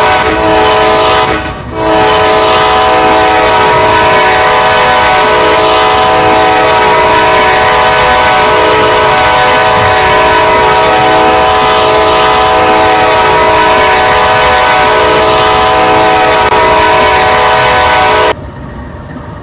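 Air horn of a Kansas City Southern GE AC4400 diesel locomotive blowing a loud, long chord, briefly broken off about a second and a half in and then held for about sixteen seconds before cutting off suddenly near the end, leaving a quieter rumble.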